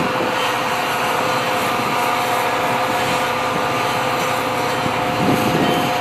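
Metra F40PH diesel locomotive (EMD 645 V16) approaching head-on, its engine running with a steady high whine over a broad rushing noise.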